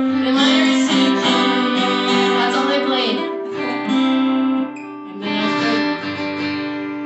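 Two acoustic guitars strummed together while a woman sings a song into a microphone, with a short dip in the playing about five seconds in.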